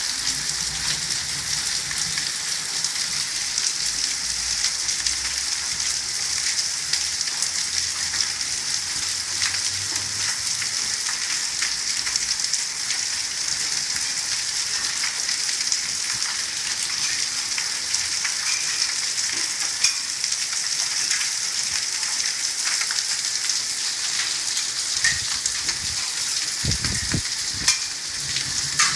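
Heavy thunderstorm rain pouring steadily, a dense hiss peppered with many small sharp ticks of impacts on surfaces.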